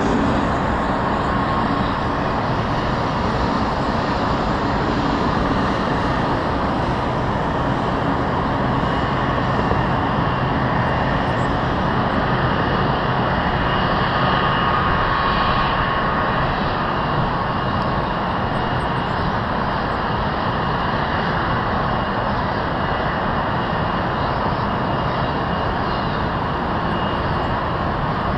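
Jet engines of a twin-engine Boeing 767 on final approach: a steady rushing rumble with a faint whine.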